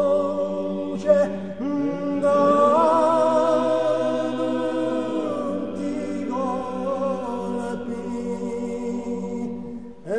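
Corsican male vocal polyphony sung a cappella, a slow lament: several voices hold sustained chords over a low held bass line while the upper voices waver with vibrato. One phrase breaks off about a second in and the next swells in; another phrase fades just before the end.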